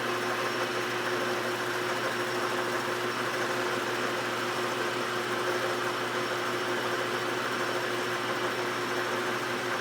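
Engine lathe running with the carriage on power feed, turning the blank: a steady machine hum with one constant tone over an even noise.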